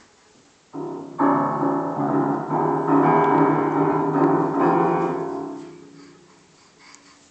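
Piano keys struck by a toddler's hands, several notes at once: a first cluster about a second in, then a louder jumble of notes that rings on and slowly fades out.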